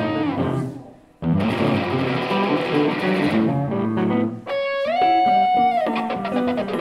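Electric guitar played through an amplifier. The sound fades almost away shortly before a second in, then cuts back in suddenly and full. Near the end a clear held note is bent up and later let back down.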